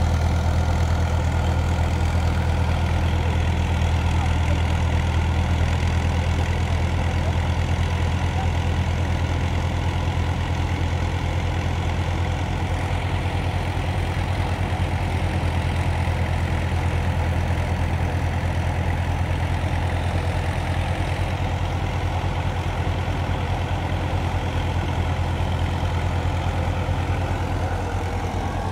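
Farm tractor's engine running steadily at a constant speed.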